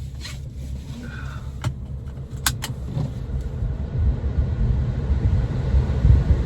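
Car engine idling, a steady low rumble that grows louder about four seconds in, with three sharp clicks in the middle.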